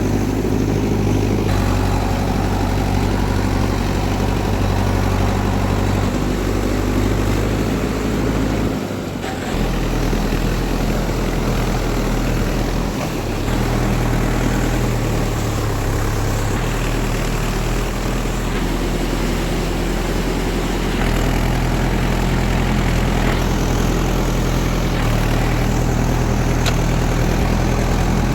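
Heavy diesel engine of farm machinery running steadily at a low pitch, its note shifting a few times, with a brief drop about nine seconds in.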